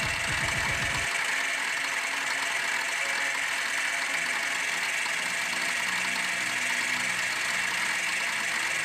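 Metalworking machine tool running steadily, with a constant high whine over a hiss. A fast low pulsing underneath stops about a second in.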